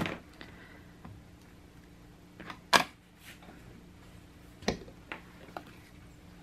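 About half a dozen sharp plastic clicks and taps, spread out, the loudest about three seconds in. They come from handling a black archival ink pad and inking a red rubber stamp mounted in an acrylic stamping platform.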